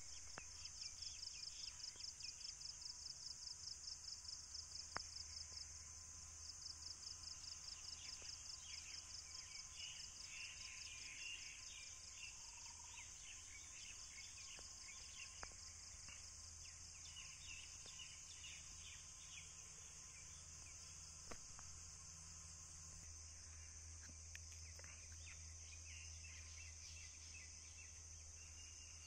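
Steady high-pitched insect chorus, pulsing in a quick even rhythm for about the first twelve seconds and then running evenly, with faint bird chirps and a few sharp clicks.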